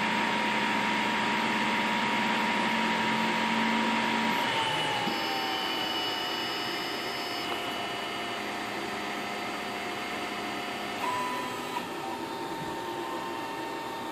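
MakerGear M2 3D printer running: its cooling fans hiss steadily under the whine of the stepper motors moving the axes. The whine's pitch glides down about four seconds in, holds, and rises again near eleven seconds in.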